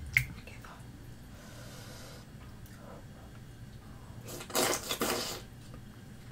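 Eating a skewered fish cake up close: a sharp click just after the start, then, about four and a half seconds in, a loud breathy mouth noise lasting about a second as the fish cake is bitten into.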